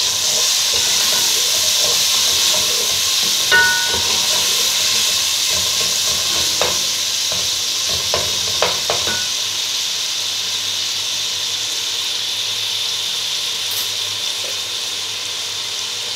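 Chopped tomatoes sizzling in hot oil with fried onions, ginger and garlic in a metal pot, stirred with a plastic spatula. A few knocks and scrapes of the spatula against the pot come between about three and nine seconds in, and the sizzle eases off a little in the second half.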